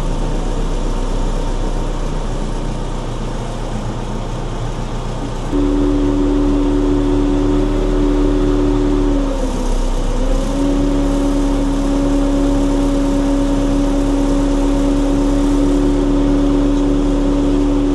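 JCB backhoe loader's diesel engine running, heard from the cab. About five and a half seconds in, it rises to a louder, steadier pitch, dips briefly around ten seconds and picks back up.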